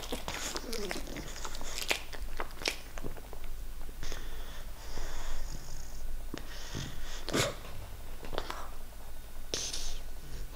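English bulldog puppy breathing noisily through a congested, runny nose from a cold, with about half a dozen short snorts and snuffles between stretches of wheezy breath.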